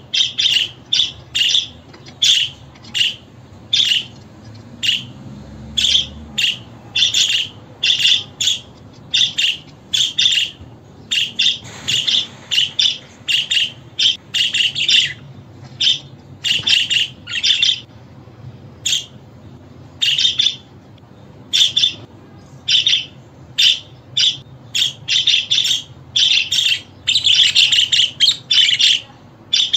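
Budgerigars chirping and chattering: a steady run of short, high calls a few per second, packed closer together near the end.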